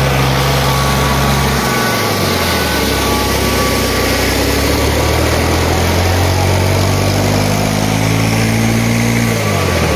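Tractor diesel engines straining at full throttle under heavy load in a tractor tug-of-war pull. The engine note drops about two seconds in, then climbs slowly and falls away sharply near the end.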